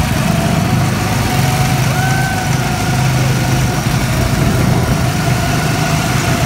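Small gasoline go-kart engines running steadily as the kart drives, heard from the driver's seat, with a thin whine that rises briefly about two seconds in.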